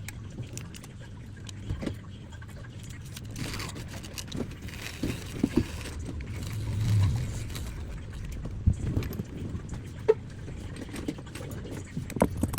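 Small tools clicking and tapping against a phone during a screen removal, over a steady low background hum.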